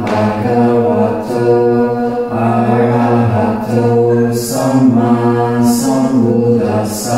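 Buddhist chanting in Pali: voices recite on a low, nearly steady pitch in long held phrases, with short hissed sounds between some of them.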